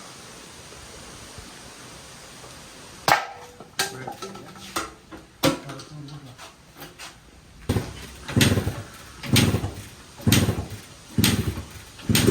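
Hammering on a workshop job. After about three seconds of faint hiss come scattered sharp taps, then heavier knocks about once a second near the end.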